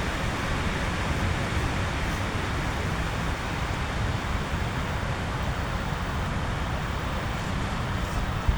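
Heavy rain falling on a tent in strong wind: a steady, even hiss with a low wind rumble underneath.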